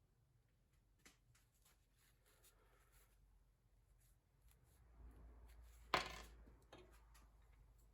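Quiet handling sounds with a few faint clicks, then a single sharp knock about six seconds in.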